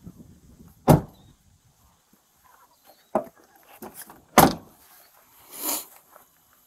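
Ram pickup's doors being opened and handled: three sharp clunks and knocks, the loudest about four and a half seconds in, then a brief rustle near the end.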